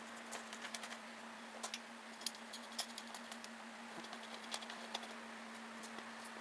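Light, irregular clicks and taps of an engine cover and its fasteners being handled and fitted onto a riding mower's single-cylinder engine, over a steady low hum.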